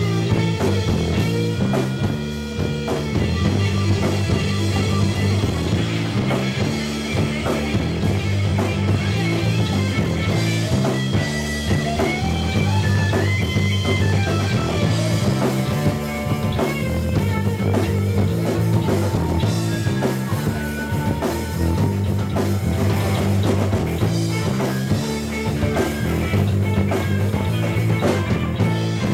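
A rock band playing live: electric guitar lines over a repeating bass guitar riff and a drum kit.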